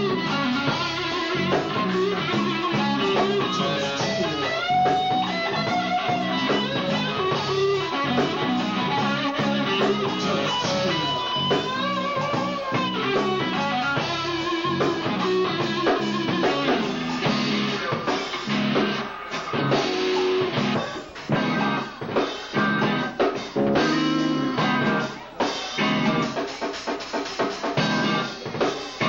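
Live funk band playing an instrumental jam: electric guitars, electric bass and drum kit, with single-note guitar lines winding over the groove. About eighteen seconds in, the playing turns into short, choppy hits with brief gaps between them.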